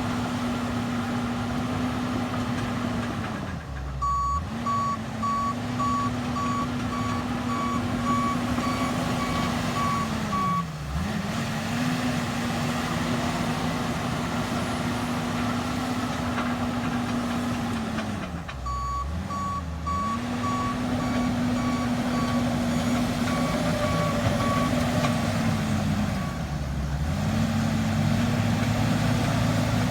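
Bulldozer's diesel engine running steadily, its pitch dipping briefly four times, with the backup alarm beeping about twice a second in two runs of several seconds while the machine reverses.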